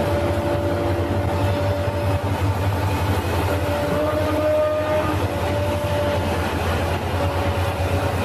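Heavy diesel machinery running steadily: a deep engine drone with a thin whine above it that wavers slightly in pitch, from the log-loading material handler and timber truck.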